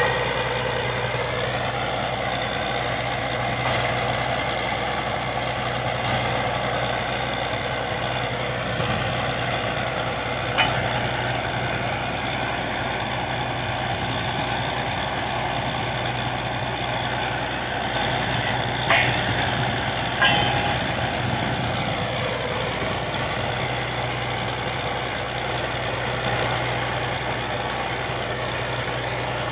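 Truck-mounted borewell drilling rig running steadily, its engine giving a continuous hum. A few sharp metallic knocks cut through, one about ten seconds in and two close together around nineteen to twenty seconds.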